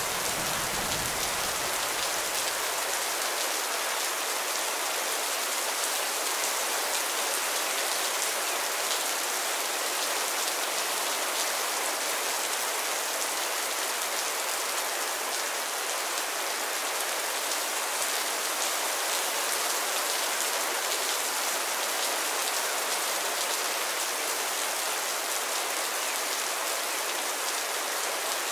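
Steady rain falling, an even hiss of drops with no break. A low thunder rumble fades away in the first couple of seconds.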